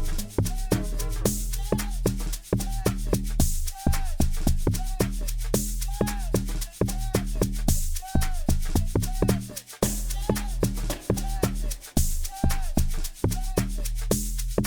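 Amapiano beat playing back: a steady deep bass line under short, bending pitched percussion notes and a fast, even pattern of shaker-like ticks.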